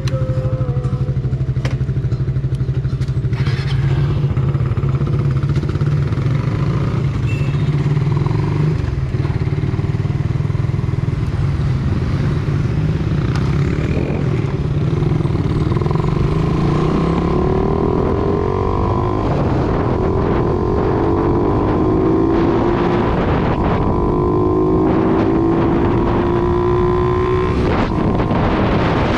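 Motorcycle engine running at low speed with a steady hum, then from a little past halfway accelerating hard through several gears, the pitch sweeping up and dropping back at each shift.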